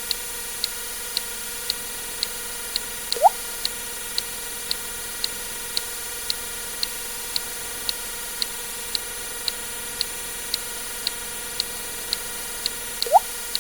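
Water drip sound effect: two short plops that rise quickly in pitch, about ten seconds apart. They sound over a steady ticking of about two clicks a second and a faint steady hum.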